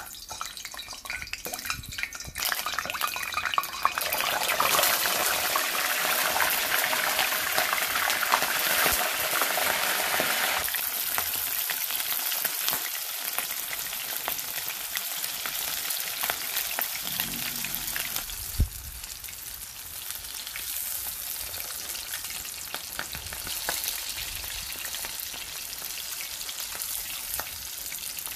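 Unbreaded, pre-boiled chicken legs deep-frying in hot oil in a cast iron wok: a dense crackling sizzle that swells a couple of seconds in, is loudest until about eleven seconds, then settles to a steadier, somewhat quieter sizzle. One sharp tap about two-thirds of the way through.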